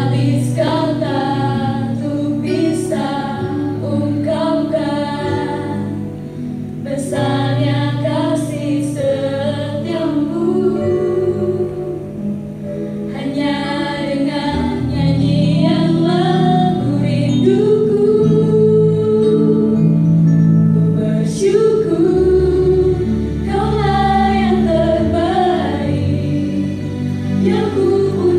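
A small group of female voices singing a gospel song together in harmony, over sustained keyboard chords.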